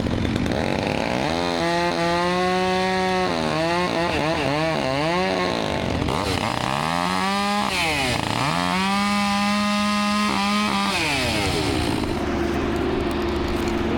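Chainsaw revving up and cutting in the tree, its pitch held high with several dips and recoveries as the chain loads in the wood, then winding down near the end.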